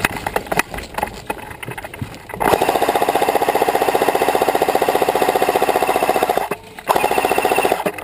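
Airsoft electric gun (AEG) firing on full auto: one long burst of about four seconds, a brief pause, then a shorter burst near the end, each a fast buzzing rattle of the motor and gearbox. Scattered single clicks come before the first burst.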